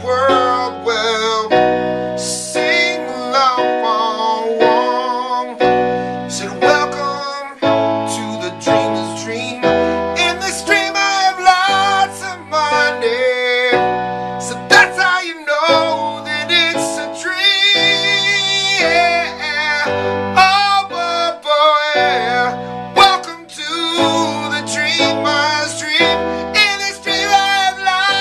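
Music: a song with a sung lead voice, some long notes held with vibrato, over keyboard accompaniment and sustained bass notes.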